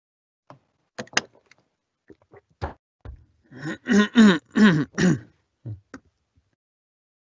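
A few sharp clicks and knocks, then about four seconds in a man's short wordless vocalising in four syllables with sliding pitch.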